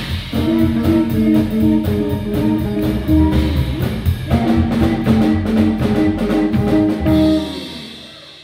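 Live swing jazz band with clarinet, upright bass and drum kit playing, the drums ticking steadily under held notes, until the final chord about seven seconds in, which then dies away.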